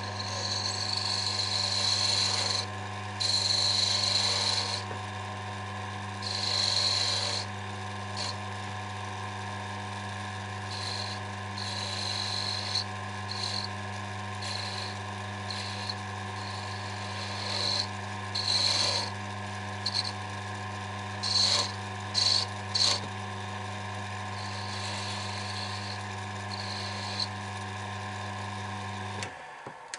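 Small lathe running with a steady motor hum while a hand-held turning tool cuts a small wooden spike, giving repeated short scraping bursts of wood being cut. The motor hum stops shortly before the end.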